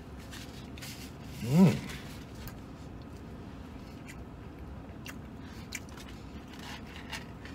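A man chewing a large mouthful of sandwich, with faint scattered mouth clicks and smacks. About a second and a half in, a brief hummed 'mmm' that rises and then falls in pitch.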